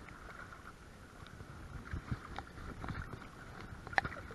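Spinning reel being cranked to bring in a hooked trout: a faint steady whir from the reel, with scattered splashes and knocks, the sharpest about four seconds in.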